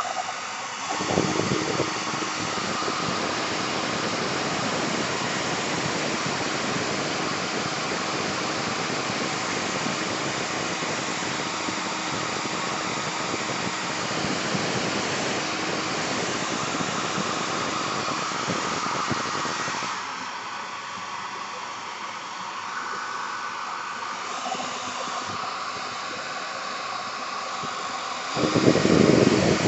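Small handheld blow dryer running steadily, blowing on wet paint to dry a paper bookmark. Its sound thins out about two-thirds of the way through and swells louder for a moment near the end.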